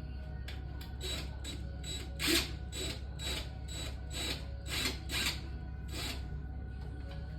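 Rhythmic scraping strokes of a hand tool working a surface, about three a second, over background music with a steady tone.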